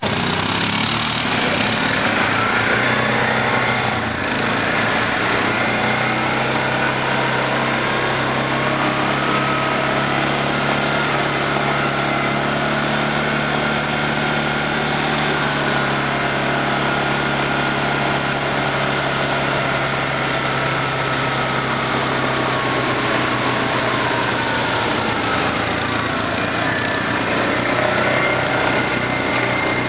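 Quad bike (ATV) engine running steadily while driving through shallow water, its note slowly rising and falling back over the middle, with water splashing and hissing around the wheels.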